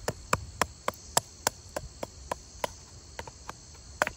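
Wooden baton tapping the spine of a Condor Swamp Romper knife to split a small stick: about ten quick, light strikes at roughly three to four a second, then a few softer taps and one more sharp strike near the end. Crickets chirr steadily underneath.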